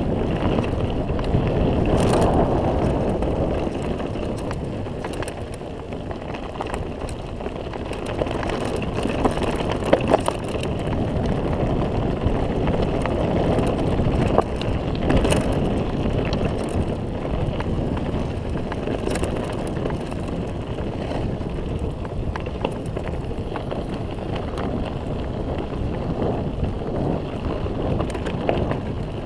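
Mountain bike rolling downhill on a dirt track: steady tyre noise on loose dirt with wind on the microphone, and now and then a sharp knock or rattle as the bike goes over bumps.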